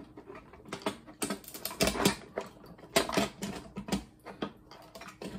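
Irregular clicks, taps and knocks of tools and plastic parts being handled as a monitor's case is taken apart.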